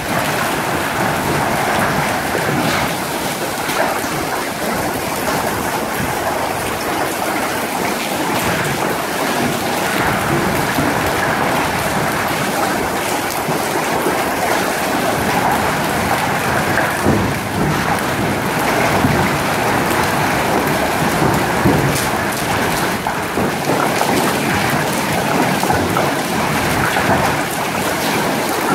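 Hail and heavy rain pelting a flooded concrete car park: a dense, steady downpour hiss peppered with the small ticks of hailstones striking the ground.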